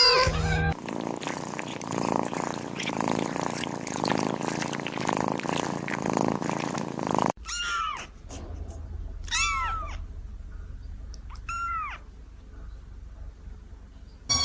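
A kitten purring close up as a steady, fast-pulsing rumble for the first seven seconds or so. It breaks off, and a kitten gives three short, high meows, each rising and then falling in pitch.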